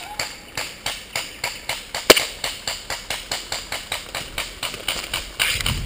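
Quick, regular footsteps through leaf litter and undergrowth, about three or four a second, with one sharper crack about two seconds in.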